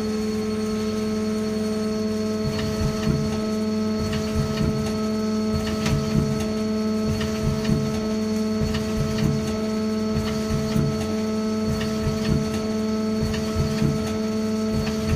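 Mazak CNC lathe running its cutting cycle: a steady hum of several constant tones from the spindle and drives, with irregular light ticks and knocks as a threading tool makes repeated passes over a spinning aluminium workpiece to cut a knurl.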